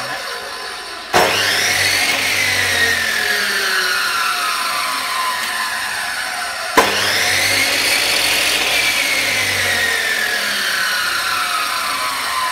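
Panda 355 mm abrasive cut-off saw's brushed motor switched on twice, free-running without cutting. Each time there is a sharp start and a whine that rises quickly as the disc spins up, then falls slowly as it coasts down; the first start comes about a second in, the second about halfway through.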